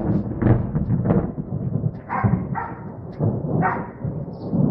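Thunder rumbling in rolling swells, with a dog barking a few times in the second half.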